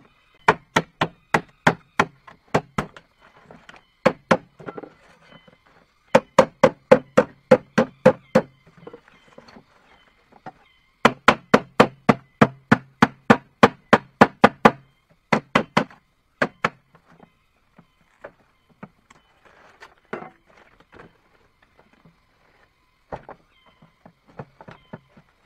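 Repeated sharp blows on wood, about three a second, in runs of several seconds with short pauses between, then fewer and softer knocks in the last part.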